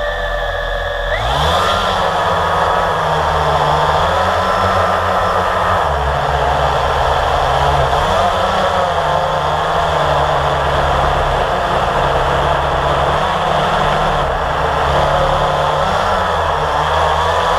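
Blade 350 QX quadcopter's four brushless motors and propellers, heard from the drone's own camera, spinning up sharply for takeoff about a second in. They then whir steadily, their pitch rising and falling as the throttle changes in flight.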